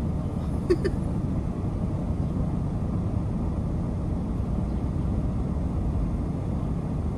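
Steady low rumble inside the cab of a parked van with its engine running. A brief sharp sound comes about a second in.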